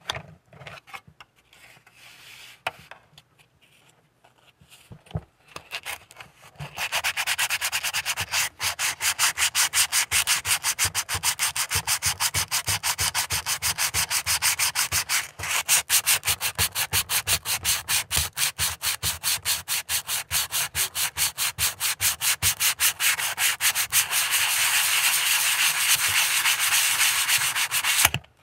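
A few light clicks of small parts being handled, then, about seven seconds in, hand-sanding of a plastic model part: quick back-and-forth rasping strokes, about four a second, running on steadily.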